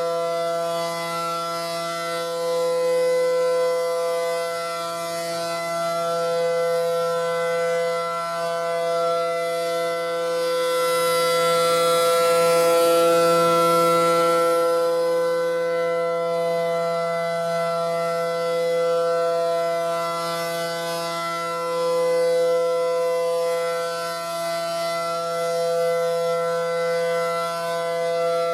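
ACA Allertor 125 rotating tornado siren holding the steady tone of its Alert signal during a test. Its loudness swells and fades every few seconds as the horn sweeps around, and it is loudest about halfway through.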